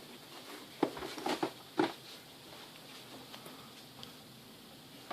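Cardboard packaging being handled: a few light taps and rustles within the first two seconds, then fainter ones.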